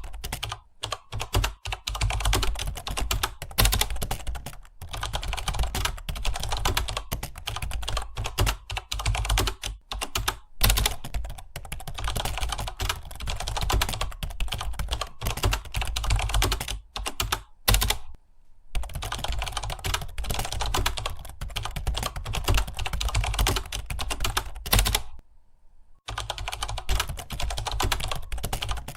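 Fast, continuous typing on a computer keyboard, a rapid stream of key clicks broken by two brief pauses, one past the middle and one near the end.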